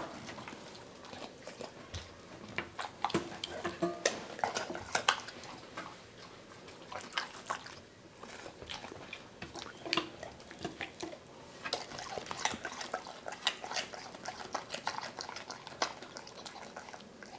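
Golden retriever chewing raw vegetables, an irregular run of short, crisp crunches and wet mouth clicks.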